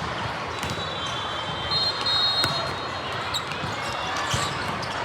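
Busy volleyball gym: a steady hubbub of voices with scattered sharp thumps of balls being hit and bouncing on the court, and a few short high squeaks.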